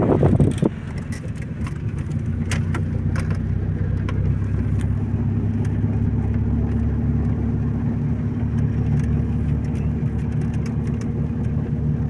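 Car driving along a road, heard from inside the cabin: a steady low engine and road drone that grows slightly louder as it goes. A louder rushing noise stops under a second in.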